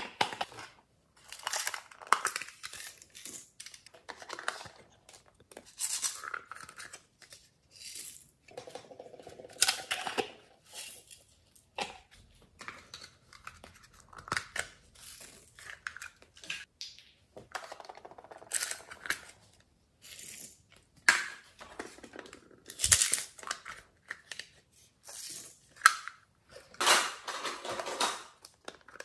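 Hands handling small plastic slime containers: irregular crackling, scraping and clicking of plastic, coming in short bursts separated by brief pauses.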